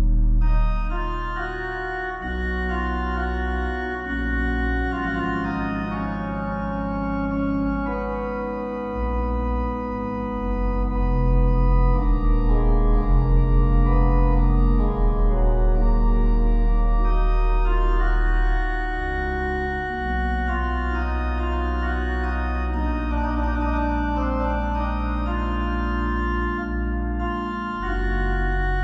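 Slow organ music: sustained chords over deep held bass notes, changing every couple of seconds, with a brief wavering swell in loudness near the middle.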